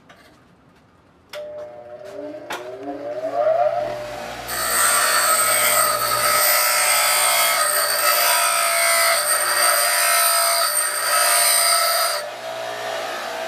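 Craftsman bench grinder switched on about a second in, its motor whine rising as it spins up. Then a steel bolt is held against the wheel, grinding loudly for about eight seconds to cut a bevel and a thread-starter groove. Near the end the bolt comes off the wheel and the motor runs on with no load.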